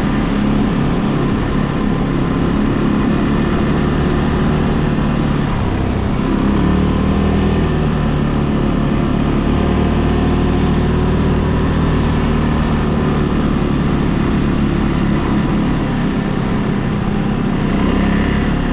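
ATV engine running steadily, with little change in pitch.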